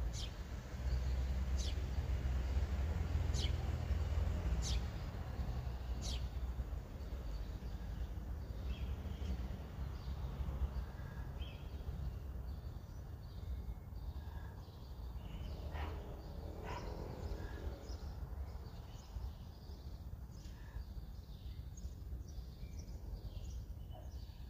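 Outdoor background of birds chirping over a low rumble. A bird gives about five short, high, falling calls, roughly one every second and a half, early on; scattered chirps follow. The rumble is strongest in the first six seconds.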